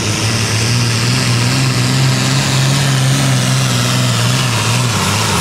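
John Deere super farm pulling tractor's diesel engine running hard under load as it drags the weight sled, a steady heavy drone whose pitch sags slightly near the end.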